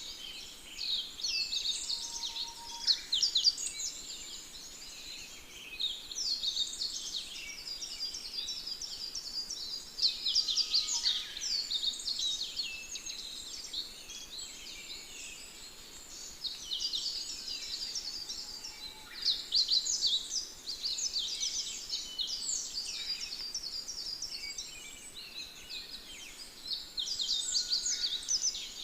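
Songbirds singing: many rapid high chirps and trills overlapping, in phrases a few seconds long that come again and again.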